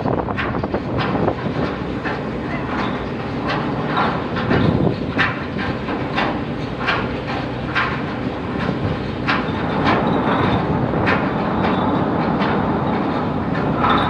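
Heavy steel anchor chain clanking and rattling as it is heaved in by the windlass, irregular clanks one or two a second over a steady machinery hum.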